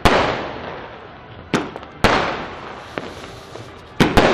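Fireworks exploding: about five sharp bangs, each followed by a fading rumble, with two coming close together near the end.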